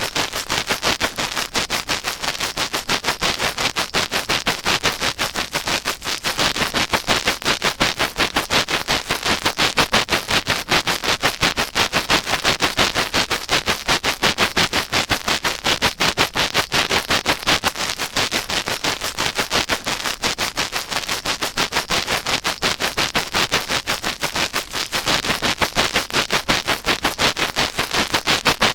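Rapid, steady scratching strokes right against the ear of a 3Dio binaural microphone: ASMR ear cleaning.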